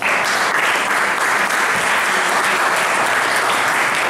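Audience applauding: a dense, even clapping that starts suddenly and holds steady.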